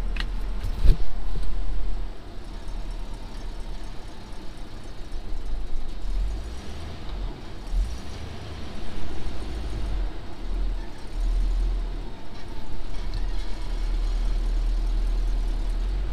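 Pickup truck engine running, heard from inside the cab, a deep rumble that swells and eases as the truck moves, with a couple of sharp knocks in the first second.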